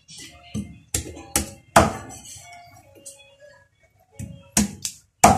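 Heavy cleaver chops through raw chicken onto a chopping block: three sharp blows in quick succession about a second in, then two more near the end, each with a short ringing after it.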